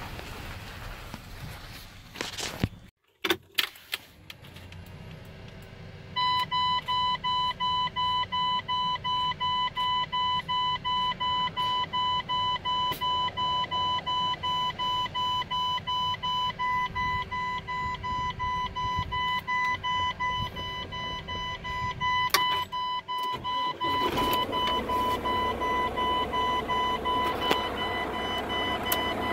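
Road and wind noise from a moving vehicle, then after a cut a Mack truck cab's dashboard warning buzzer beeping steadily, about two high beeps a second, with rustling handling noise joining near the end.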